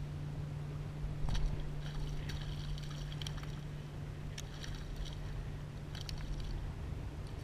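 Steady low drone of a distant boat motor over water lapping, with several short bursts of high rattling clicks.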